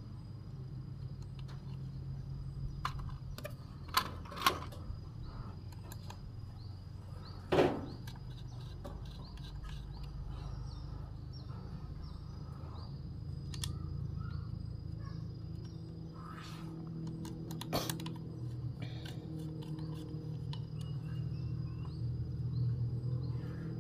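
Plastic RC bulldozer toy handled and turned over: scattered sharp clicks and knocks, the loudest three in the first eight seconds, over a steady low hum.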